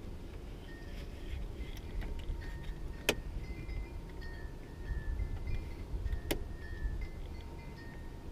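Light metallic clinking and two sharp clicks about three seconds apart, from hand work on the door's latch, rods and handle parts, over a steady low rumble.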